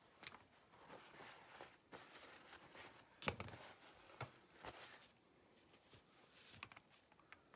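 Faint handling sounds at a workbench: a paper towel rustling and a few light clicks and knocks, the sharpest about three seconds in.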